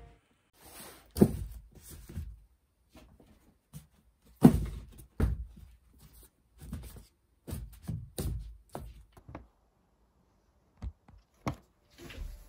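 Things being picked up and set down on a wooden desk while tidying: a string of separate thunks and knocks with quiet gaps between, the loudest about a second in and again about four and a half seconds in.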